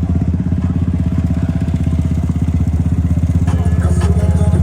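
Engine of an off-road build running close up, a loud low exhaust note with a fast, even pulsing beat.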